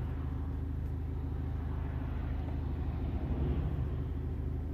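BMW 520d's 2-litre diesel engine idling steadily, heard from inside the cabin as a low, even hum.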